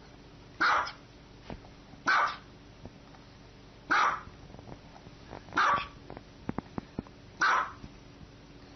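Small dog barking: five sharp single barks, one about every one and a half to two seconds, with a few faint clicks between them.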